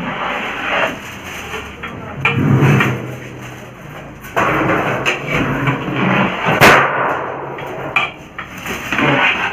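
A long metal ladle scraping and knocking against a large aluminium pot while cooked rice is stirred and fluffed. There is one sharp clank about two-thirds of the way through.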